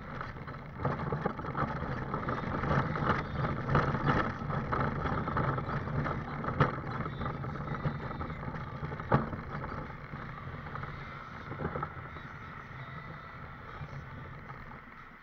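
A scooter rolling along a pavement: a steady running rumble with rattles and a couple of sharp knocks from bumps, getting quieter in the last few seconds.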